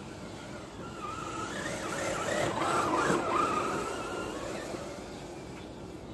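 Traxxas TRX-4 RC crawler's electric motor and geared drivetrain whining as it ploughs through deep snow, the pitch rising and falling with the throttle. It gets louder as the truck comes close, peaks about three seconds in, then fades as it drives away.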